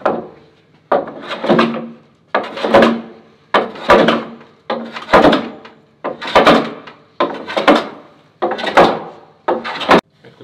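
Metal hand plane taking shavings across a glued-up birch-strip board: nine strokes about a second apart, each starting sharply and trailing off.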